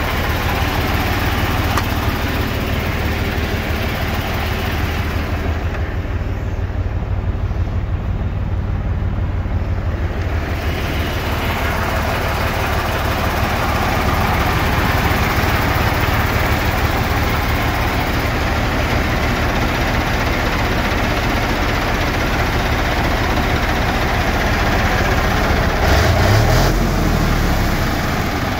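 Mercedes-Benz 1622 truck's diesel engine running steadily while it drives the hydraulics that raise the Meiller tipper body, with the revs rising briefly near the end.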